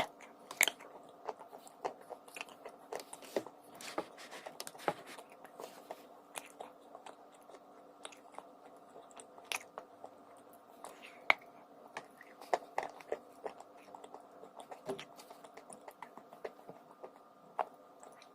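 A person biting and chewing a crunchy lump of dry edible mineral, with irregular sharp crunches about once or twice a second over a steady background hum.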